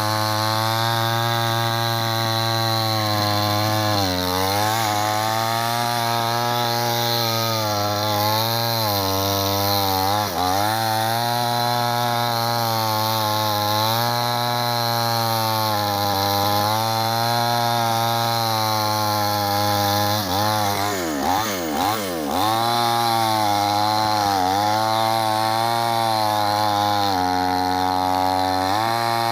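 Chainsaw running at high speed while cutting wood. Its pitch sags and recovers several times as the chain loads in the cut, most deeply about three-quarters of the way through.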